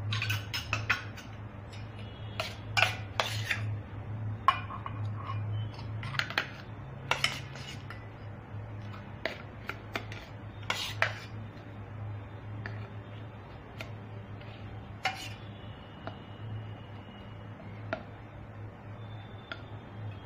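A steel spoon clinking and scraping against a steel bowl and small steel kulfi moulds as thick ice-cream mixture is spooned in. The clinks are irregular and come more often in the first half, over a low steady hum.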